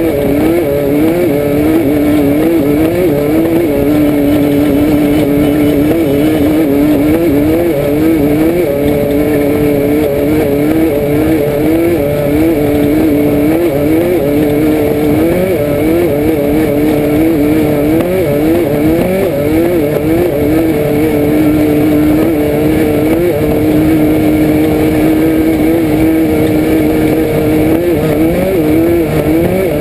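Air-cooled VW flat-four engine of a Class 5/1600 Baja Bug racing off-road, heard from inside the car: the revs climb and drop again and again every second or two, then run steadier for much of the last third, over a constant low rumble.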